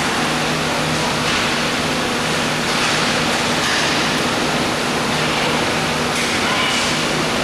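Steady rushing noise with a constant low hum, the general ambience of an indoor roller hockey rink during play, with a few slight swells in the hiss.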